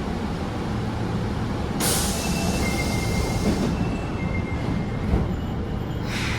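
Osaka Metro 22 series subway train running, with a steady rumble and thin high wheel squeal in the middle. There are two bursts of hissing, one about two seconds in lasting nearly two seconds and a shorter one near the end.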